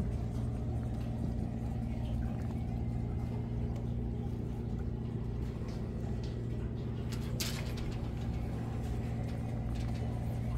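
Steady low hum of an engine running at an even idle, with one brief sharp tick a little after halfway.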